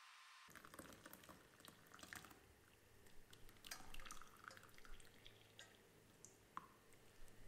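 Faint trickle and drips of boiled green-tea concoction running through a small mesh strainer into a bowl, with scattered light clicks; it starts about half a second in.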